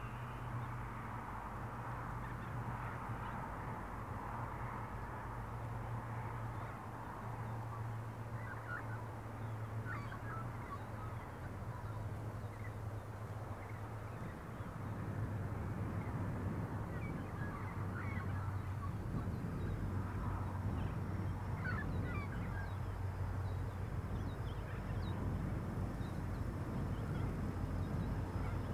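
Distant Pacific National 81 class diesel-electric locomotives (EMD two-stroke V16s) approaching under power: a low, steady engine drone that grows louder about halfway through, with birds calling now and then.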